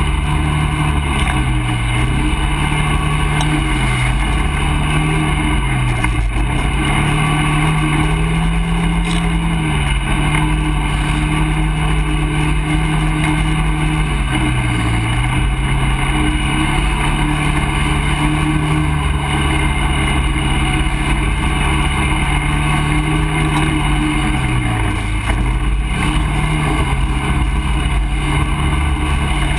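ATV engine running under way, its note holding steady and dipping briefly in pitch several times before picking back up.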